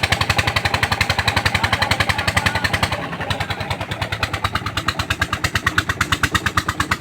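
Engine of a water-well boring rig running with a fast, even knocking beat of about ten strokes a second. The sound turns duller about three seconds in.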